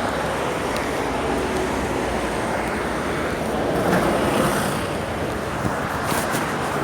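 Steady rushing noise of wind on a phone's microphone, mixed with rain and street traffic.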